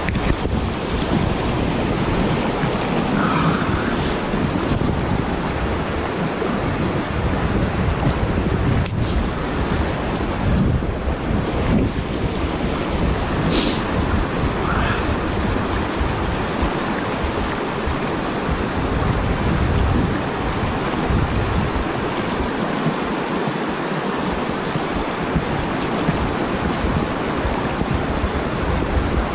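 Water rushing steadily over and below a concrete dam spillway, with wind buffeting the microphone in an uneven low rumble.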